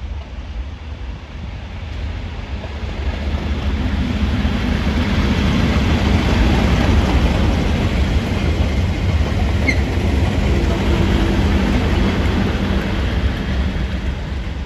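British Rail Class 37 diesel locomotives, with English Electric V12 engines, passing close with a freight train. The engine sound and the rolling of wagon wheels on the rails build to their loudest about halfway through, then ease off as the train moves away.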